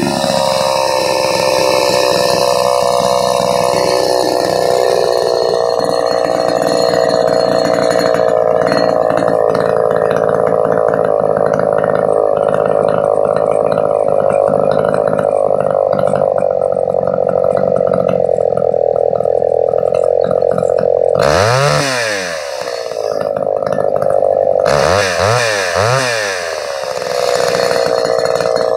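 Homelite XL123 two-stroke chainsaw running steadily at high revs. Near the end the revs drop and climb back up, about 21 seconds in and again about 25 seconds in.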